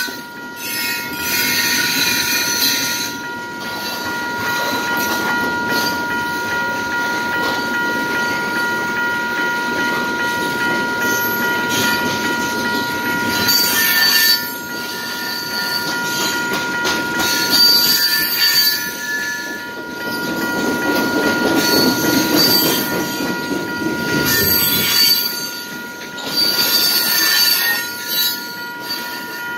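Freight train of tank cars rolling through a grade crossing: steady rumble of wheels on rail, with wheel squeal coming and going. Over it, the crossing's electronic bell gives a steady set of high tones. The bell is malfunctioning ('sick'), not sounding like a normal e-bell.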